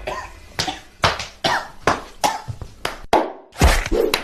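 A person coughing in a quick series of short, sharp coughs, about two to three a second.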